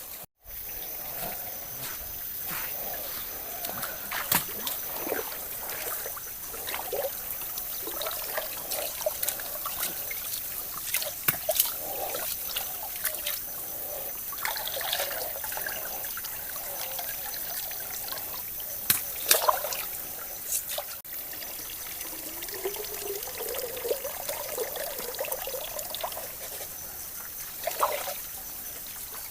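Water trickling and splashing, with scattered light knocks and clatters.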